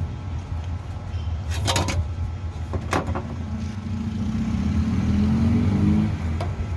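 A motor vehicle engine running, its pitch rising a few seconds in, with two sharp clicks earlier on.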